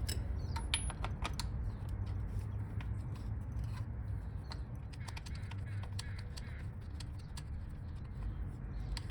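Light, irregular metallic clicks and taps of hand tools working at a dirt bike engine's oil filter plug, over a steady low hum.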